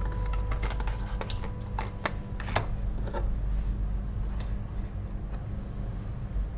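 Light clicks and taps of a small plastic device and its packaging being handled: a quick run of clicks in the first few seconds, then a few scattered ones, over a steady low hum.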